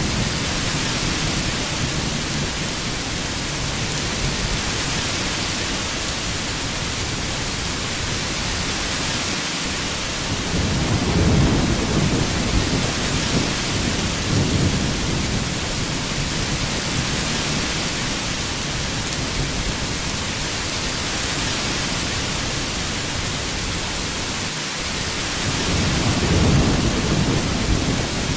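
Heavy rain falling steadily as an even hiss, with low rolls of thunder swelling up around ten seconds in and again near the end.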